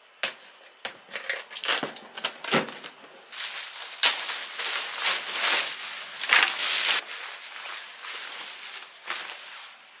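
A cardboard shipping box being handled and opened, with sharp crackling rips in the first few seconds. Then a jacket is pulled from its plastic bag: long crinkling of the plastic and rustling of the shell fabric, easing off after about seven seconds.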